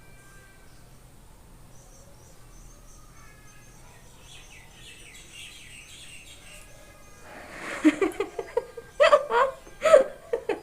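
Faint bird chirps and thin whistles in the background. About seven seconds in, a person's voice breaks in with a sudden loud outburst and then short, loud vocal bursts.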